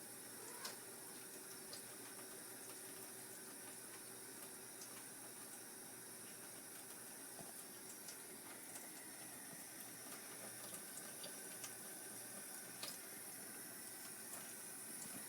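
Faucet running in a steady, faint stream of water, with a few soft ticks scattered through it.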